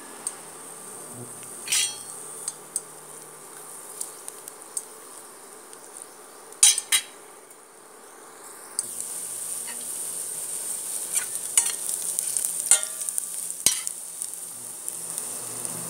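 Garlic sizzling in hot oil in a pan, with the occasional scrape and clink of a spatula stirring it. The sizzle grows louder about nine seconds in.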